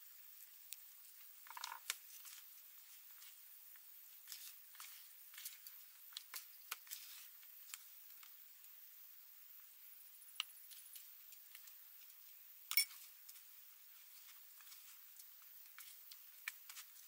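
Metal spoon stirring flour and water in a plastic basin, then hands working the dough: scattered light clicks and scrapes, with a short pour of water near the start and one sharper tap about thirteen seconds in.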